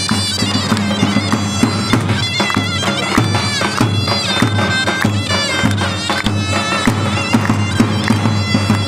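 Zurna playing a loud, reedy, ornamented melody over davul bass drums beating a steady dance rhythm: traditional Turkish davul-zurna music.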